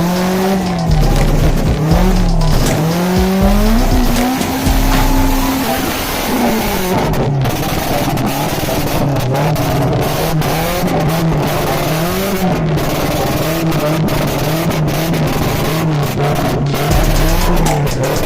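A car engine revving hard, its pitch climbing and dropping over and over, with tyres squealing and skidding.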